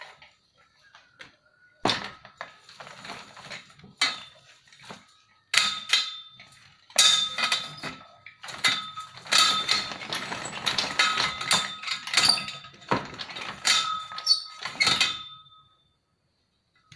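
Homemade hand-cranked sheet-metal rolling machine (roller bender) clanking and rattling as its handwheel and gears are worked, metal knocking on metal with a ringing tone. A few sharp knocks in the first seconds give way to a dense clatter from about five seconds in, which stops about a second before the end.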